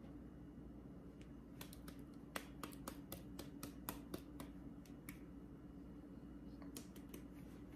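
Light, sharp knife clicks on a cutting board in an irregular run while an onion is being cut up, pausing about five seconds in and resuming briefly near the end. A faint steady hum runs underneath.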